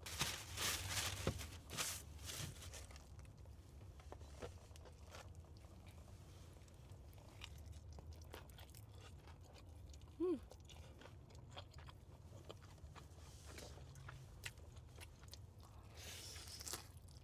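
Crunching bites into crispy Jollibee fried chicken and chewing, loudest in a burst of crackling in the first two seconds, with smaller crunches after and another crackly patch near the end.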